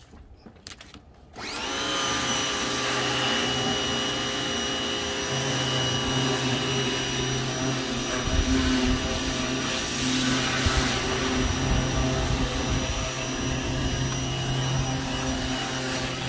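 Ryobi 1600 PSI electric pressure washer's motor and pump kicking on about a second in as the trigger is squeezed, the pitch rising briefly and settling. It then runs steadily with a whine over the hiss of the water spray.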